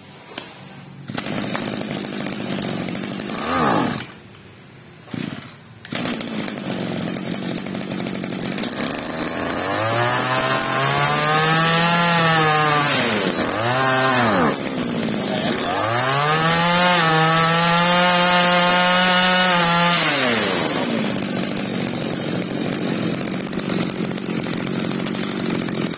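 Small two-stroke brush cutter engine being pull-started from cold: a few short attempts, then it catches about six seconds in. In the middle it is revved up and back down several times, the pitch rising and falling, then it settles to a steady fast idle.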